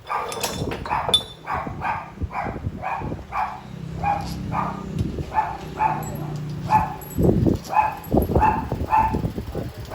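Dog barking over and over, about two or three short barks a second.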